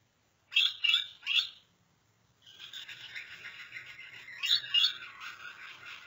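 Gouldian finch: three sharp chirps close together, then from about two and a half seconds a continuous high, buzzy warbling song, the male's courtship song during his breeding display.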